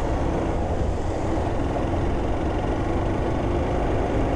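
Motorcycle ridden along a wet road, heard from the rider's helmet camera: the engine running at a steady pace under a constant rush of wind and tyre noise.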